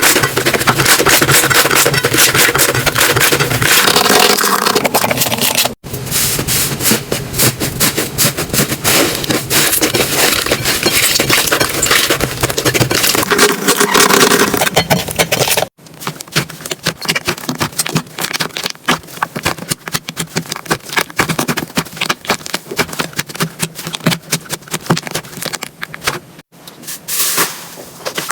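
Slime being squeezed and worked, with dense crackling and popping. Brief silent breaks come three times as the clips change, and the later part is quieter, with sharper separate clicks.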